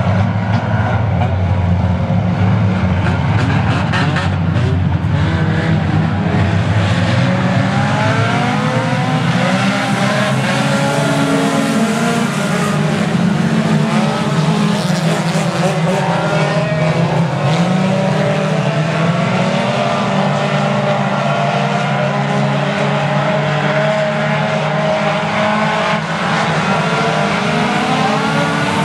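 A pack of four-cylinder race cars running at speed, several engines at once, their pitches rising and falling as the cars pass and accelerate.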